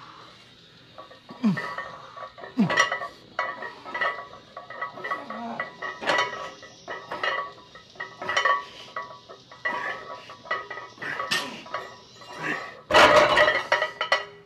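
Plate-loaded lever chest press machine clinking through a set of reps: iron weight plates and lever arms give a short metallic clink about every second or so. A louder, longer clatter comes near the end as the set finishes.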